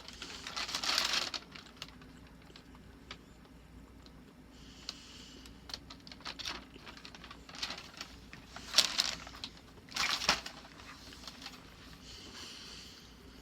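Small clicks and short rustles from a chocolate praline being handled and eaten, with a few louder rustles about one second in and again around nine and ten seconds in.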